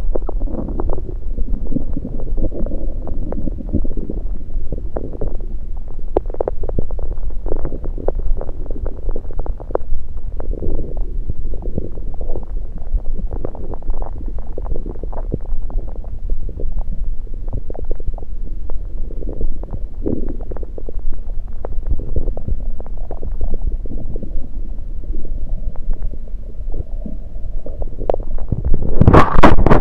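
Stomach gurgles picked up by an electronic stethoscope on the belly: a continuous run of bubbling and crackling, with a louder burst near the end. By the uploader's account this is liquid and air moving in the stomach, not digestion.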